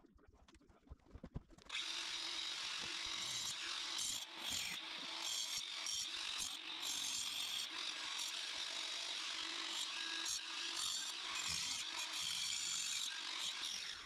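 A power tool running steadily, starting about two seconds in and stopping near the end, with a few faint knocks before it.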